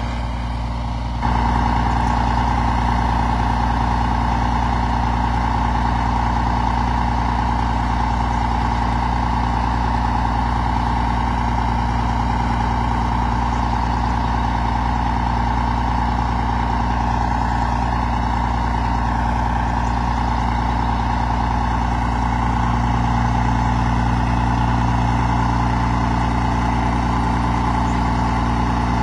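Semi truck's diesel engine idling steadily, a little louder from about a second in.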